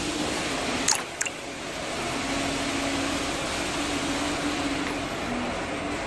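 Two sharp clicks about a second in, a third of a second apart, over a steady hiss and a low on-and-off hum, as a glass perfume bottle is set into a pneumatic crimping machine.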